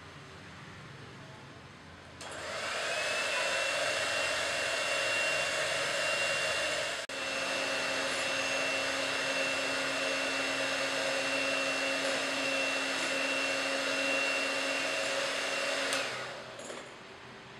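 Electric hand mixer running with its wire beaters whisking frothy egg whites in a glass bowl. About two seconds in the motor speeds up with a rising whine, then runs steady, with a brief break about seven seconds in. It cuts back off about a second and a half before the end.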